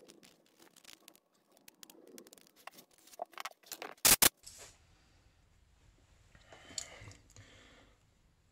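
Metal pick scraping and picking carbon out of a snowmobile's APV power valve: a run of small scratches and clicks, then two sharp knocks about four seconds in, then softer rustling of the parts being handled.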